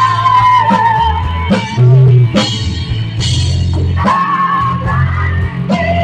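Rock band music with drum kit, bass and guitar, and a held, wavering melody line over a steady beat.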